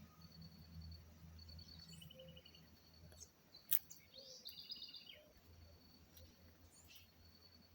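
Several birds chirping and giving short rapid trills in the early-morning chorus, over a low distant rumble that fades away about three seconds in. A single sharp click sounds a little before the middle.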